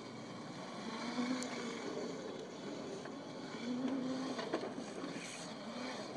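Razor Crazy Cart electric drift cart running on asphalt as it drifts in circles. Its motor hum swells and fades with speed, strongest about a second in and again about four seconds in, over the steady rolling noise of its wheels.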